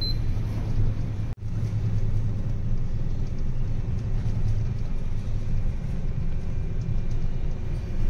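Steady low hum and rumble of a ship's machinery and ventilation, with a faint steady high tone over it. A single short high beep from the fire detection panel's buzzer sounds right at the start, and the sound cuts out for an instant about a second and a half in.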